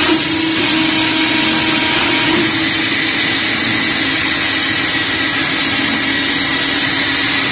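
Aluminium ladder riveting machine running: a steady, loud mechanical hum and hiss with a held low tone.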